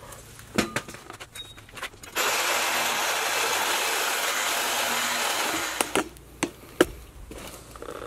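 Cordless power saw cutting through the copper tubes of a double-wall heat exchanger: a steady run of about four seconds that starts a couple of seconds in and stops, with a few knocks of handling before and after.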